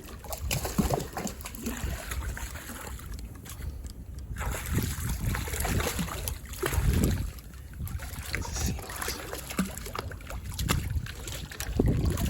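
Water sloshing and splashing, with scattered knocks and clicks and a low rumble.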